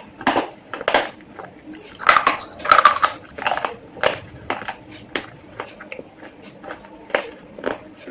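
Slate pencils being bitten and chewed: a run of sharp, irregular crunches, with the loudest cluster about two to three and a half seconds in.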